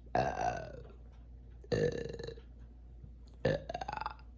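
A woman burps three times in a row, short and quiet, each about a second and a half apart, with gas brought up by sparkling water.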